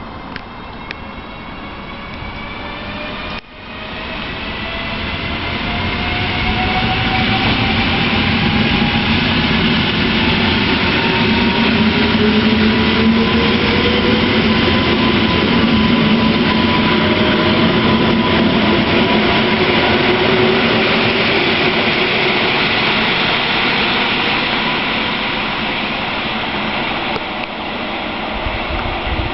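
EN57AL electric multiple unit pulling away and accelerating past close by. Its traction motor whine climbs in several pitches and then holds steady over wheel and rail rumble. The sound begins after a short break about three seconds in and fades slowly as the train draws off near the end.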